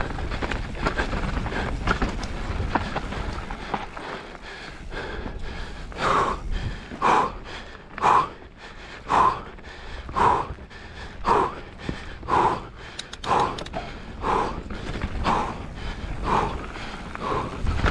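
Mountain-bike rider breathing hard and rhythmically, about one heavy breath a second, starting about six seconds in. A low rushing noise fills the first few seconds.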